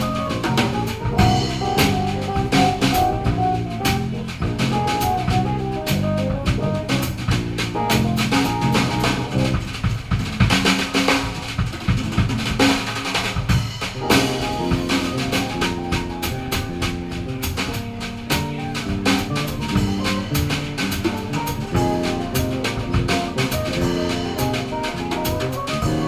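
Live jazz-funk band playing: the drum kit is to the fore with snare and bass-drum hits, under electric bass and keyboard. About ten seconds in the cymbals get busier for a few seconds.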